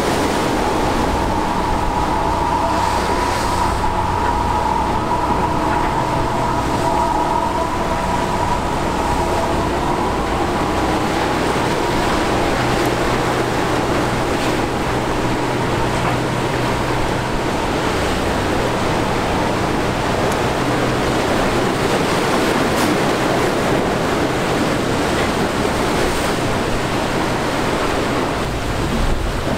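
Fishing trawler's diesel engine running steadily under the rush of waves and churning water, with a high whine that fades after about ten seconds.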